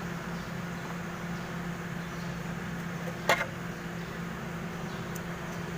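A steady low machine hum, with one sharp knock about three seconds in.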